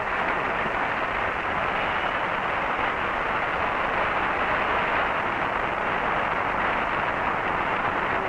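A large audience applauding in one long, steady round of clapping, heard on an old film soundtrack with dull, cut-off highs.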